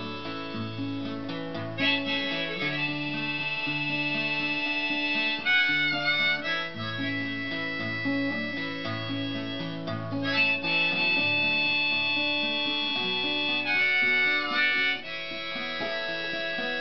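Harmonica and acoustic guitar playing an instrumental break in a folk song. The harmonica plays long held notes and wavers on a note twice, about a third of the way in and again near the end, over steady picked bass notes on the guitar.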